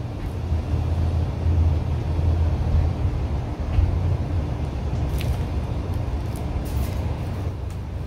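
Steady low rumble of distant road traffic, with a few faint short ticks in the second half.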